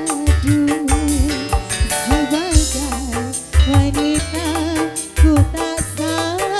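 Live dangdut music from an orgen tunggal keyboard band: a wavering melody over repeating bass notes and a steady drum beat.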